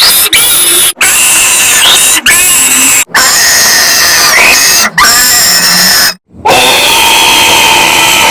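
A string of long, loud burps, about six of them, each lasting a second or two, with short breaks between them.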